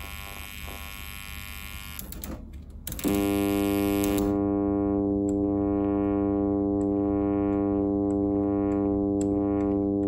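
Buzzy test tone from a Krohn-Hite 3202 analog filter over a small desktop speaker. It is nearly cut out with crackle for the first three seconds, then jumps back in and holds steady, with faint ticks and its brightness swelling and falling as the cutoff knob is turned. The dropout and static mark a janky cutoff-frequency potentiometer, worst at the top of its range.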